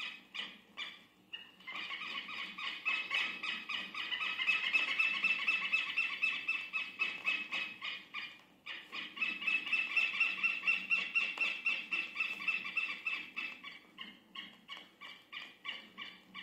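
Southern lapwing (quero-quero) calling: long runs of rapid, harsh, repeated notes, with a short break midway and scattered notes toward the end.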